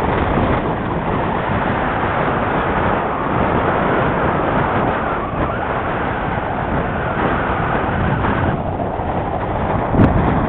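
Steady rush of air over the microphone of a camera riding on a flying model airplane, with a short knock near the end.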